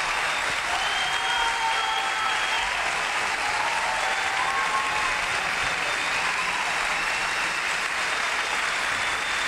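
Large audience applauding steadily, with a few held cheering calls or whistles over the clapping.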